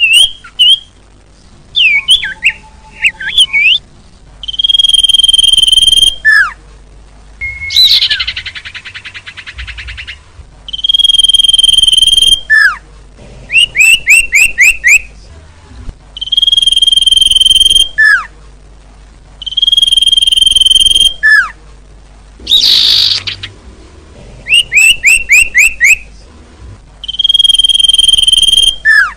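Edited bird-lure recording of small songbird calls that loops over and over. A long, steady, high whistled note comes back five times. Between the whistles are quick runs of down-slurred chirps, falling notes, a buzzy trill about a quarter of the way in, and a harsh rasping call about three-quarters of the way through.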